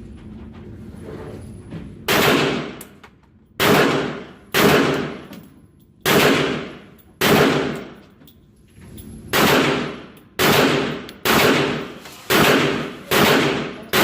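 About ten shots from a Kel-Tec PMR-30 .22 Magnum pistol, fired one at a time in a steady string about a second apart, each trailing off in a short echo. The shooting starts about two seconds in.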